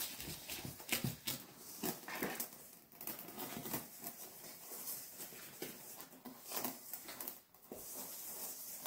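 Wooden spoon stirring a sticky flour-and-milk dough in a stainless steel bowl: irregular scrapes and knocks of the spoon against the metal.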